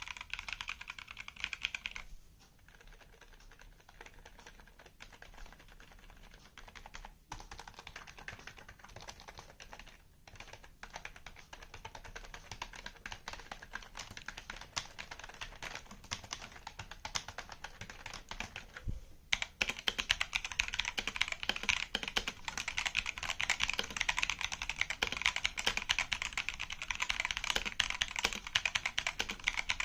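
Fast, continuous typing on a computer keyboard, a dense stream of key clicks. It is softer for the first stretch, breaks off briefly about two-thirds of the way through, then comes back louder and denser.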